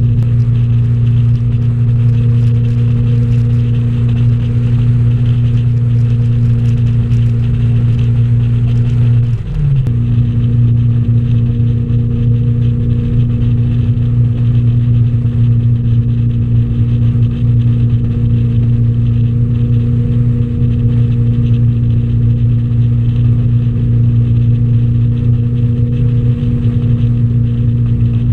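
Ski boat engine running steadily at towing speed, a constant hum with water and air rushing past. About a third of the way in, the engine pitch dips briefly and then picks back up.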